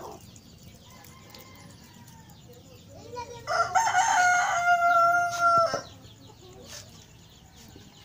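A rooster crowing once, starting about three and a half seconds in, ending in a long held note of about two seconds that cuts off.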